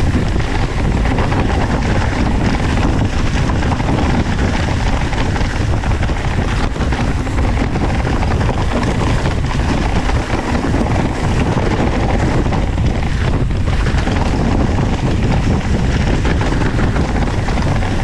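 Hardtail mountain bike descending a forest dirt trail at speed: a steady rush and rumble of wind buffeting the camera microphone, mixed with tyres rolling over leaf-covered dirt and the bike rattling over the bumps.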